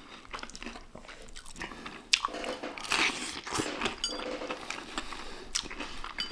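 Crisp breaded fried chicken crackling and crunching as it is torn apart by hand and chewed, in a run of short crunches, the loudest about two and three seconds in.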